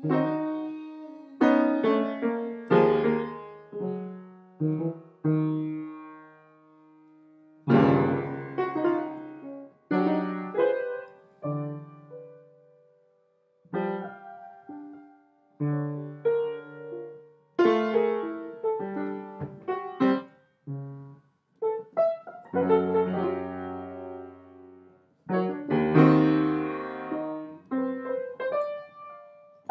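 Piano played slowly, chords and single notes struck and left to ring, in phrases broken by a couple of brief pauses.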